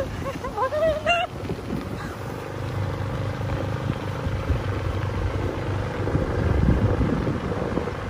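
A vehicle engine running steadily on the road, a low rumble with a faint steady hum above it, and wind on the microphone.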